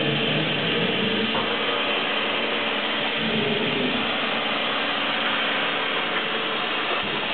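Spindle of a 2005 Sharp SV-2412 CNC vertical machining center running steadily at 2,500 RPM, a smooth whir with faint held tones, while the machine moves the tool through its program in dry run without cutting.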